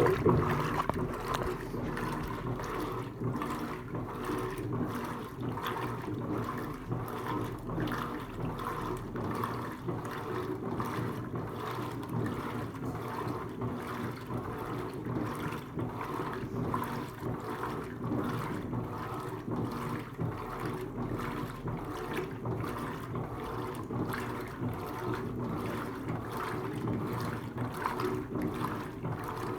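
Electrolux Turbo LTC15 top-loading washing machine running through its wash, with a steady churning and sloshing of water and clothes in the tub.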